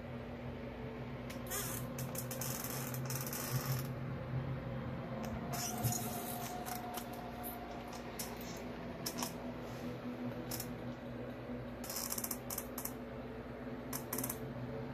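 A steady low electrical or ventilation hum in a small room, broken by several short, high scratchy noises: about two seconds in, around six seconds, and again near the end.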